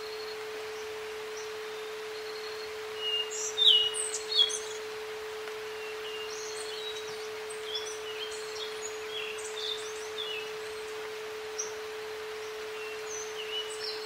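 A steady mid-pitched electronic isochronic tone over a soft nature-ambience hiss, with songbirds chirping on top, briefly loudest about three to four seconds in.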